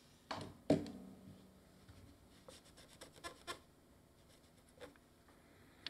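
Small handling sounds of work on a circuit board: two sharp knocks about half a second in, then faint scratching and a few light ticks.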